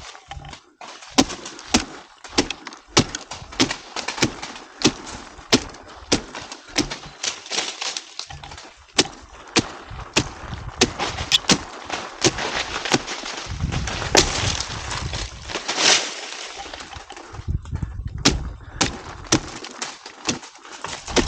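Rapid, sharp chopping blows into palm wood, about one and a half strikes a second, with a low rumble under them for a few seconds past the middle.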